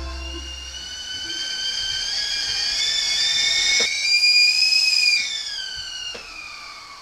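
Stovetop whistling kettle at the boil: a shrill whistle of several tones at once that rises in pitch and loudness, is loudest about four to five seconds in, then drops in pitch and fades near the end.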